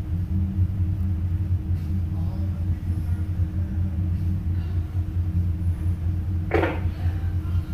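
Towboat's diesel engines running, a steady low drone with a steady hum above it, heard from inside the wheelhouse. About six and a half seconds in, a short burst of noise cuts through briefly.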